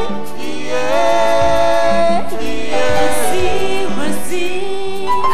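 Music with a singing voice, a steady song.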